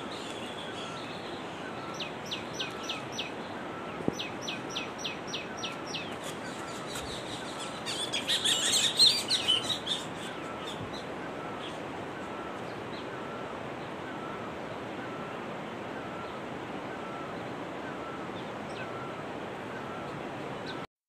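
Wild birds calling over a steady outdoor hiss. A run of quick, high, downward-sliding chirps comes a couple of seconds in, a busier flurry of calls follows about eight seconds in, and a softer call repeats about once a second throughout.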